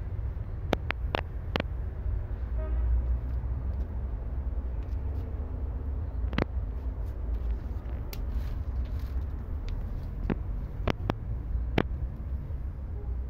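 Steady low rumble of distant road traffic, with scattered sharp clicks and taps: a quick run of four near the start, one about six seconds in, and another run of four near the end.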